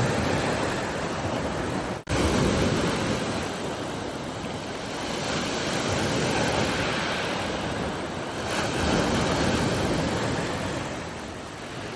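Ocean surf: waves breaking and washing in, swelling and easing every few seconds. A sudden brief dropout about two seconds in breaks the sound.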